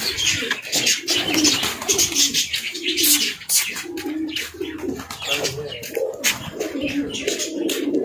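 Domestic pigeons cooing over and over, several birds at once, with scattered sharp clicks among them.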